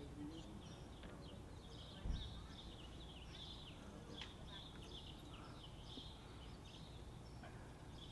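Small birds chirping faintly and repeatedly over a low outdoor rumble, with a single low thump about two seconds in.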